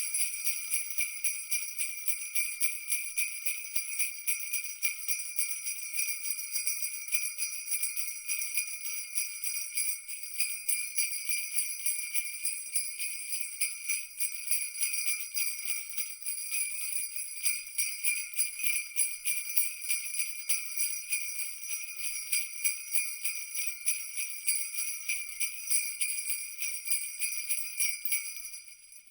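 Jingle bells shaken continuously in a fast, even jingle that fades out at the very end.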